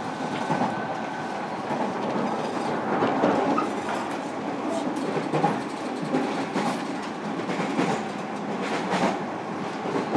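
Running sound of a JR Kyushu 305 series electric train heard from inside a motor car: a steady rolling rumble, with the wheels clicking over rail joints every second or so.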